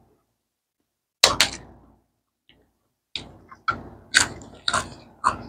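Crisp cracker being bitten and crunched close to the microphone: two sharp crunches about a second in, then a run of about five more crunches a little later.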